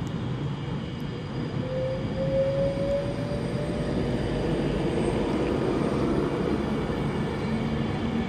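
Virgin Trains diesel train pulling away from the platform and accelerating, its engines running under power with a steady low drone and a rising whine about two seconds in.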